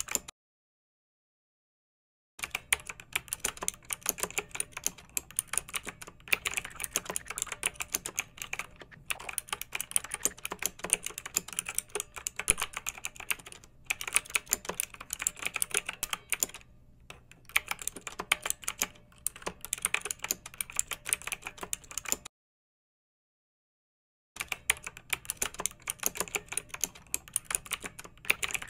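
Rapid, dense clicking like fast typing, broken twice by about two seconds of dead silence, once just after the start and once near the end.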